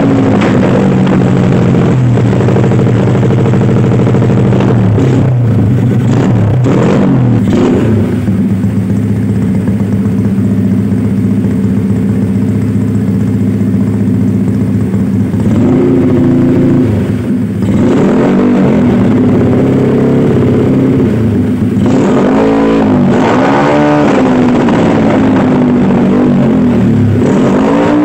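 Motorcycle engine with a modified, backfire-rigged exhaust, idling and being revved up and down again and again through an aftermarket silencer. Sharp pops come on several of the revs, the exhaust backfiring.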